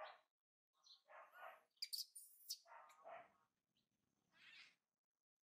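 Baby macaque giving a series of short, thin cries one after another, with a few sharper, higher squeaks about two seconds in.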